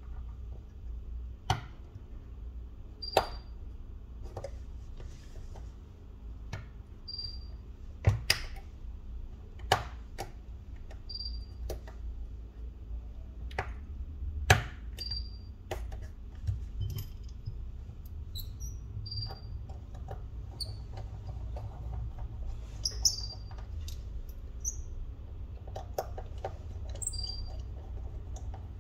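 Irregular small clicks and taps as parts and flex-cable connectors are pressed into place in a smartphone's frame by hand. A faint short high chirp repeats about every four seconds over a steady low hum.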